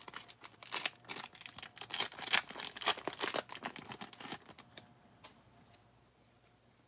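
Foil wrapper of a 1991 Fleer Ultra baseball card pack crinkling and tearing as it is ripped open by hand, a rapid crackle that dies away about four and a half seconds in.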